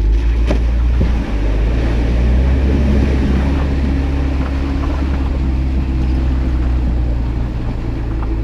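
A Jeep's engine running steadily under load while its mud tyres churn through mud and water on an off-road trail climb.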